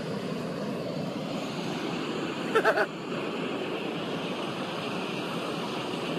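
Steady rushing wind noise on the microphone, with a brief voice cutting in about two and a half seconds in.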